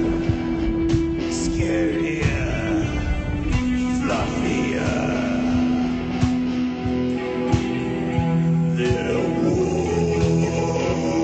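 Rock band music: guitars over a drum beat, with some singing.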